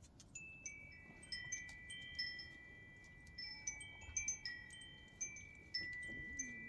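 Wind chimes ringing, their tones struck at irregular moments and hanging on as each fades.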